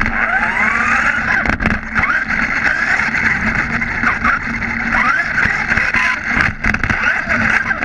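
HSP XSTR Pro RC buggy's electric motor and drivetrain heard from an onboard camera: a whine that sweeps up in pitch again and again as the car accelerates, over a steady rush of wind and tyre noise.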